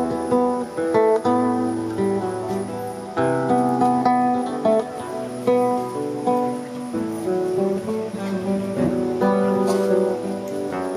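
Instrumental music of plucked strings: a steady flow of short picked and strummed notes over held low bass notes.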